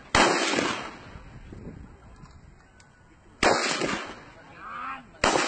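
Single rifle shots on an open firing range, three in all: just after the start, about three and a half seconds in, and near the end. Each is a sharp crack with a short echoing tail.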